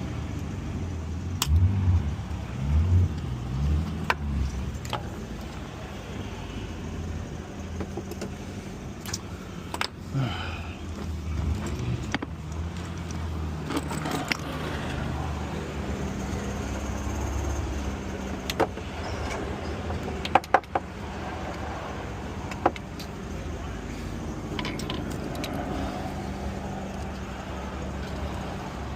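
Small metal hand tools clicking and scraping intermittently against the engine while an old thread-repair coil is picked out of the tensioner bolt hole, with a sharp cluster of clicks a little past the middle. A steady low hum lies underneath.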